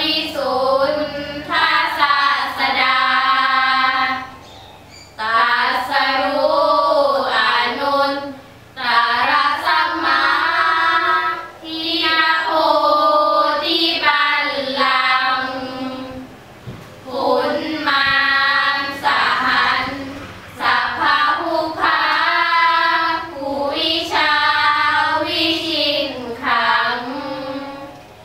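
Five schoolgirls chanting Thai Buddhist sarabhanya together, a melodic sung chant in long phrases with short pauses for breath between them.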